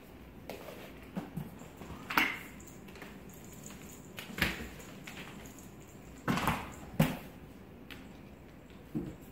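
Kittens playing on a carpeted cat tree: a handful of irregular thumps, bumps and scuffs as they jump, land and bat at a hanging toy, the sharpest about two seconds in and about seven seconds in.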